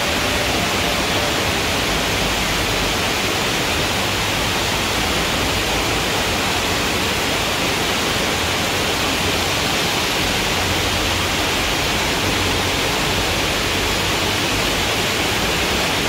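Steady rush of water from a waterfall or mountain stream, an even hiss with no breaks or changes in level.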